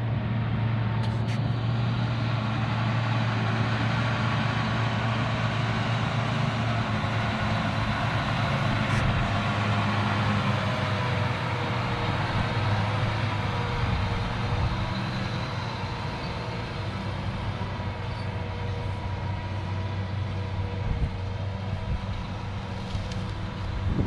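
John Deere 8245R tractor's diesel engine running steadily as it drives past towing a Case IH chisel plow. Its hum fades over the second half as it pulls away.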